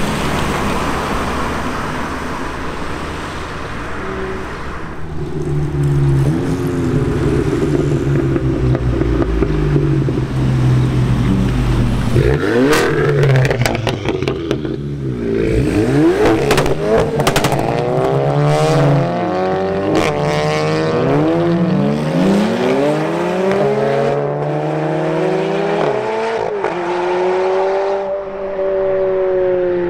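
Supercar engine running low and steady, then revving hard again and again in the second half, its pitch climbing and dropping with each rev.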